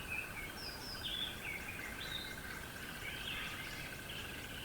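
Riverside ambience: several birds singing short chirping phrases over a steady low wash of outdoor noise, with a steady high trill running underneath.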